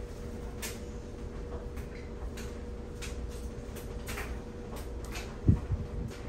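Household items being handled: scattered light clicks and taps, then a dull thump about five and a half seconds in, the loudest sound, with a couple of softer knocks after it. A steady low hum runs underneath.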